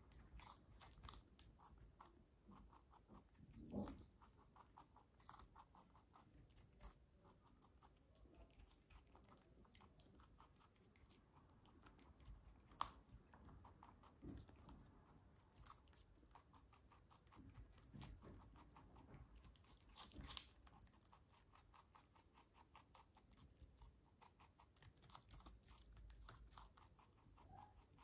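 White lop-eared rabbit chewing cucumber: a quiet, rapid, steady run of small crunching bites, with a few louder crunches scattered through.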